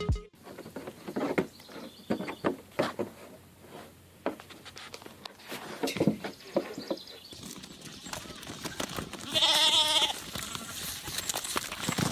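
Scattered knocks and clicks, then one bleat about a second long with a wavering pitch, about three-quarters of the way through.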